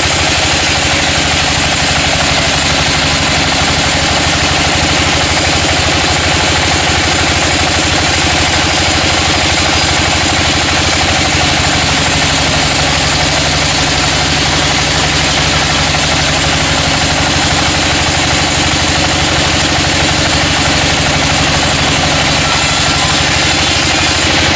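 A sawmill's engine running steadily at an even pitch, with a dense hiss over it.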